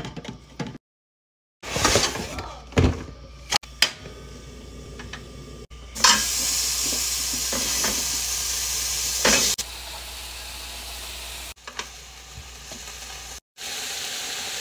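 Pork sizzling on a hot grill pan over a portable butane stove, loudest from about six seconds in, then a quieter steady sizzle. Short knocks and clicks come in the first few seconds.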